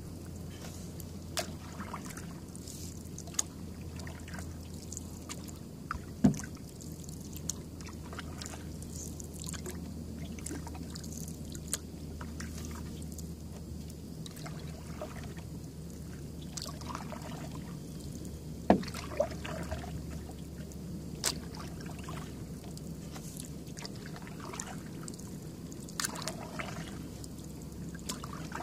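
Canoe paddling: soft strokes and trickling drips from the paddle on calm water, over a steady low hum. A few sharp knocks stand out, loudest about six seconds in and again near nineteen seconds.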